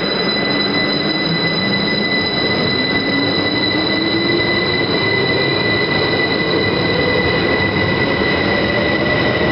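Heathrow Express train running through the tunnel, heard from inside the carriage: a steady rumble and hiss under a constant high whine, with a lower whine that rises slowly in pitch through the second half.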